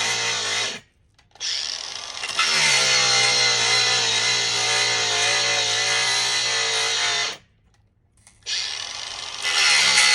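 Angle grinder running with a steady high whine while cutting through plexiglass sheet, the pitch and loudness shifting as the disc takes the cut. The sound cuts out abruptly twice, about a second in and for about a second past the middle.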